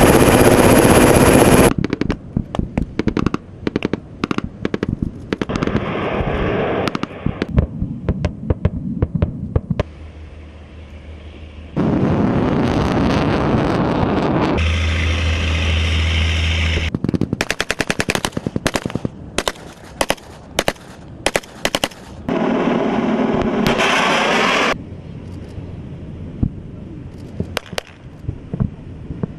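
Automatic small-arms fire: rapid bursts of shots and scattered single shots, broken up by several stretches of steady rushing noise.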